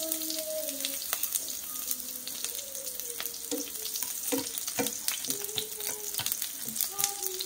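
Sliced shallots sizzling in hot oil in a nonstick frying pan, with a steady hiss and frequent crackles and pops, while a plastic slotted spatula stirs them.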